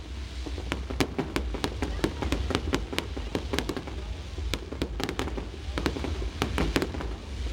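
Aerial fireworks going off in a rapid, irregular barrage of sharp cracks and bangs over a continuous low rumble.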